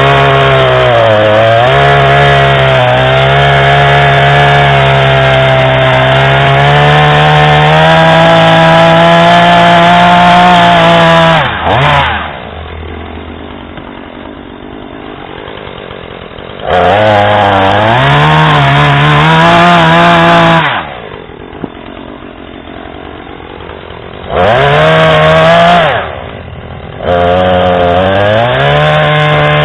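Husqvarna 440e's 40.9 cc two-stroke chainsaw engine running at high revs, dropping to idle about a third of the way through. It is then revved back up three times, with idle stretches between.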